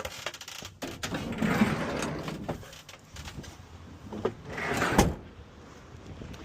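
A kei van's door being worked: a few light clicks, a scraping slide about a second and a half in, then another slide that ends in a sharp latching clunk about five seconds in.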